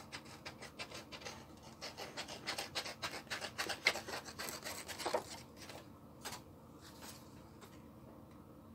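Scissors snipping through a magazine page: a quick run of short crisp cuts that thins out and stops about six seconds in.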